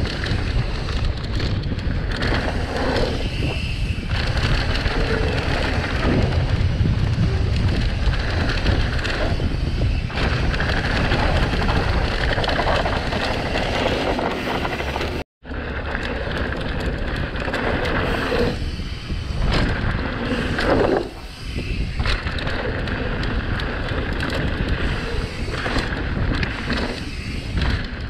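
Mountain bike descending a rough dirt downhill trail: a constant rattle and rumble of the tyres and bike over dirt and rocks, with wind on the microphone. The sound cuts out for an instant about halfway through, then carries on the same.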